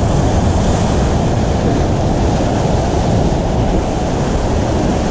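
Loud, steady wash of ocean surf surging against the rock ledge below, with wind buffeting the microphone.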